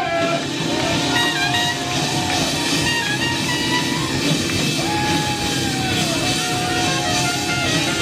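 Live soul and R&B band playing, with drums and guitar under a lead line of long held notes that bend in pitch.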